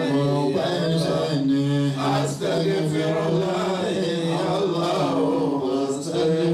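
A group of men chanting Islamic devotional phrases (dhikr) into a microphone. Several voices hold a steady low drone while a leading voice rises and falls above it.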